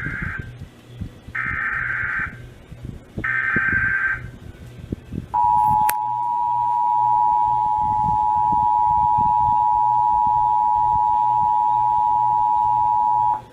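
Emergency Alert System test tones: three short bursts of SAME header data tones, the first already under way, then the EAS two-tone attention signal. The attention signal starts about five seconds in and holds steady for about eight seconds before cutting off near the end. A sharp click comes just after the two-tone signal starts.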